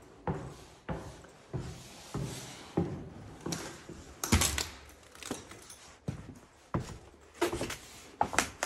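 Footsteps on a debris-strewn floor, about one and a half steps a second, with a louder, longer crunch about four seconds in.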